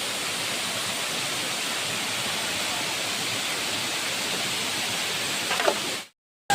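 Steady rushing of the Hurnatpi waterfall. A brief pitched sound comes near the end, and then the sound cuts off suddenly.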